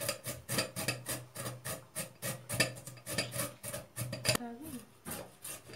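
Carrots being grated by hand on a metal grater: quick repeated strokes, about three a second, each a short scrape, with a brief pause a little after four seconds in.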